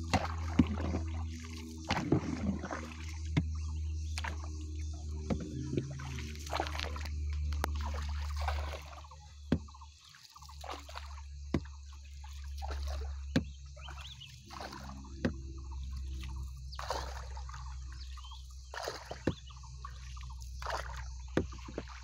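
Water sloshing and trickling as a bamboo pole is worked through a lake from a small boat, with many short sharp knocks scattered throughout, over a steady low rumble.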